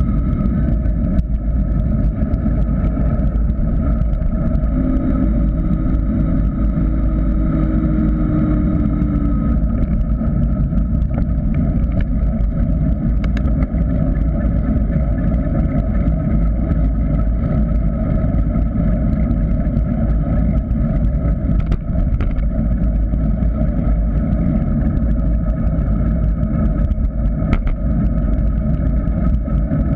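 Wind rushing over the camera microphone of a GoPro Hero 3 on a descending mountain bike, together with the bike's tyres rolling on asphalt: a loud, steady rumble with a few small clicks from bumps in the road.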